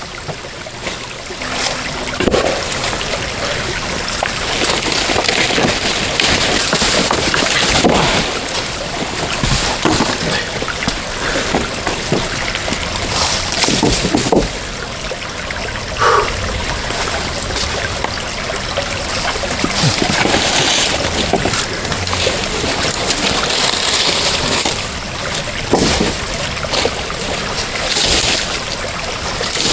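Water splashing and trickling, with irregular splashes breaking through a steady wash of running water.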